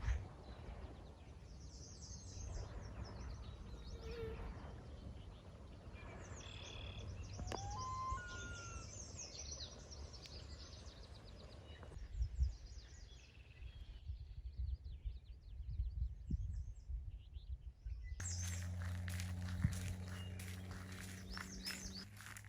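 Several small birds chirping and singing over faint outdoor background noise. About three-quarters of the way through, a low steady hum comes in suddenly under the birdsong.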